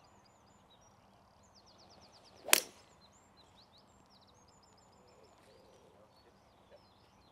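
A golf tee shot: the club swings and strikes the ball with one sharp crack about two and a half seconds in. Birds chirp faintly throughout.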